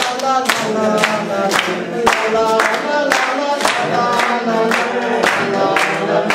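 A group of people singing together, with hand claps keeping a steady beat about twice a second.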